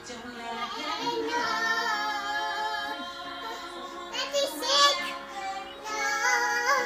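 Music playing with a high-pitched singing voice over long held notes; the sung line is strongest about halfway through and again near the end.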